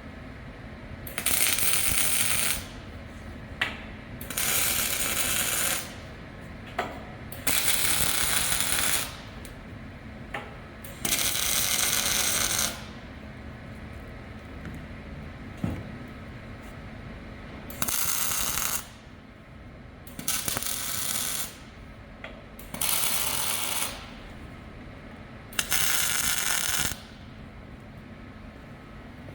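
MIG welder laying tack welds on steel: eight short bursts of crackling hiss, each a second or two long, separated by pauses, with a few light knocks in between.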